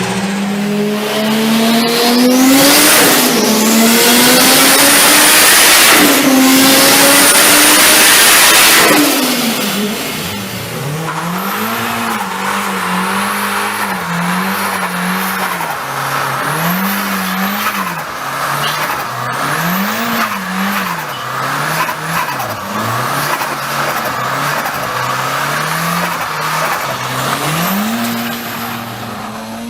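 Turbocharged car engine revved hard for the first nine seconds or so, with a loud hiss over it. It then blips up and down over and over, about once every two seconds.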